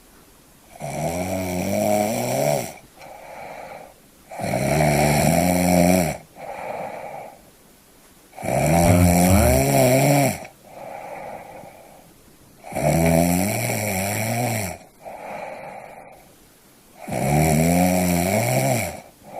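A person snoring: five long, loud snores about four seconds apart, each followed by a shorter, quieter breath.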